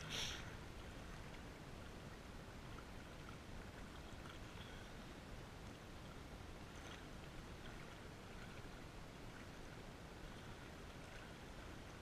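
Small wind-driven waves lapping and splashing against a rocky lake shore, over a steady low rumble of wind on the microphone. A short, sharp hiss at the very start.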